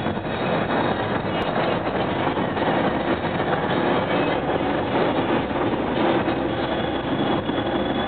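Steady road and engine noise inside a moving van's cabin, with the dashboard air-conditioning fan blowing.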